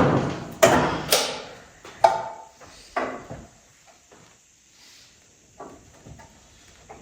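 A run of sharp knocks and bangs, about five in the first three seconds, one of them ringing briefly. They give way to a few faint taps.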